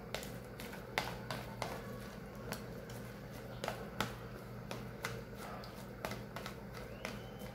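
Fork mashing boiled potatoes in a plastic tub: irregular taps and clicks of the fork pressing down against the tub, roughly one or two a second.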